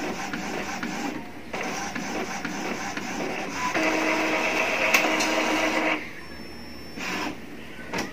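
Epson L3153 EcoTank inkjet printer printing a nozzle-check test page: the print-head carriage and paper-feed mechanism run in short spells. There is a louder, steady whir for about two seconds in the middle as the sheet is fed out, then a brief burst of motor noise near the end.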